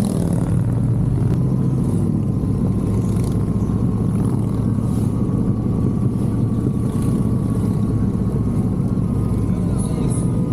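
Harley-Davidson V-twin motorcycle engine running steadily at cruising speed, with a low rumble of wind and road underneath.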